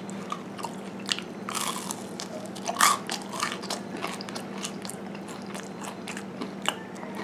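Close-up eating of a crunchy homemade baked cheese-topped stick: a bite, then chewing with crisp crunches, the loudest in the first three seconds. A faint steady low hum sits underneath.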